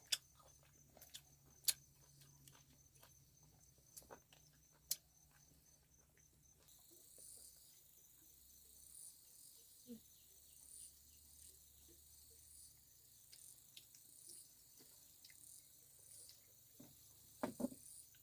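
Insects chirping, a faint high chirp repeating a little under once a second that sets in about a third of the way through. Before it come scattered light clicks and taps, and near the end there is a brief louder sound.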